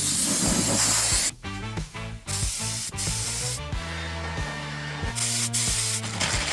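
Spray gun hissing in several bursts of about a second each, starting and stopping abruptly, as leather colour is sprayed on a seat. Background music plays throughout.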